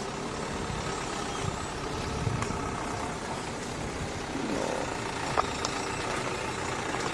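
An engine running steadily, with one short sharp click a little past five seconds in.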